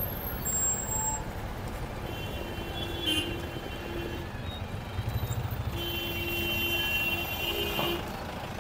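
Busy street traffic: engines running and passing, with a vehicle horn sounding in two long, steady honks, about two and a half and six seconds in.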